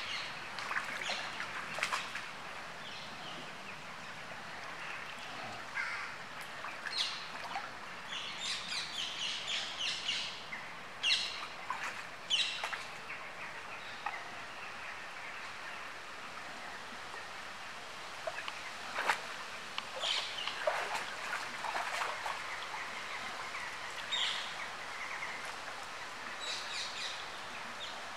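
Small birds chirping in short, scattered bursts over a steady outdoor background hiss, with one short sharp sound about two-thirds of the way through.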